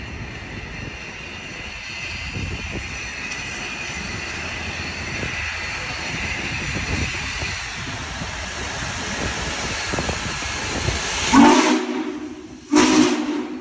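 Union Pacific 4014 Big Boy steam locomotive drawing close, with a steady hiss of steam that grows louder as it nears. Near the end come two loud, short whistle blasts, the second a little longer than the first.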